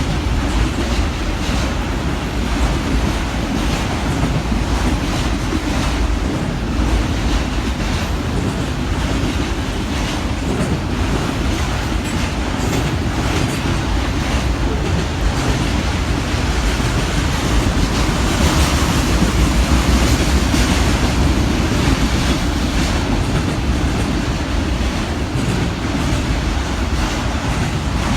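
Freight train cars rolling past: a steady rumble of steel wheels on rail, with repeated clicks as the wheels cross rail joints and a brief swell in loudness about two-thirds of the way through.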